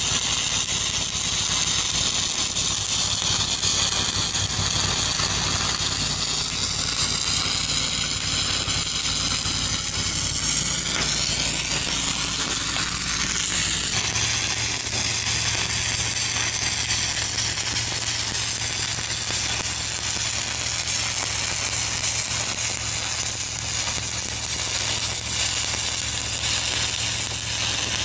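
Stick (shielded metal arc) welding with 1/8-inch 7018 rod at about 115 amps: a steady crackling sizzle from the arc as a stringer cap pass is run on small-diameter pipe. A low hum runs underneath and changes about halfway through.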